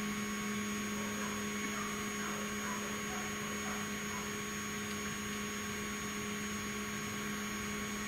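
Stepper motor of a 3018 desktop CNC router jogging the X axis 100 mm at 500 mm/min: a steady hum at constant pitch.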